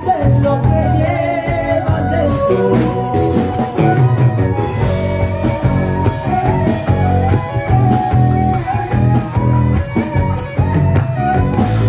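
Live band playing a chacarera: acoustic guitar, electric guitars, bass and drum kit, with a stepping lead melody on top.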